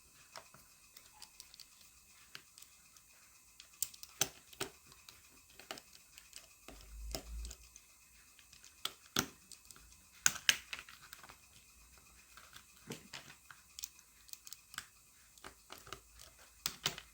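Small screws being undone from a plastic toy sonic screwdriver and its casing handled: scattered light clicks and small plastic knocks, with a brief low bump about seven seconds in.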